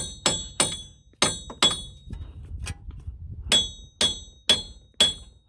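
About nine sharp, ringing metal-on-metal hammer blows on a screwdriver, in quick clusters, driving a worn wheel bearing hub loose a little at a time.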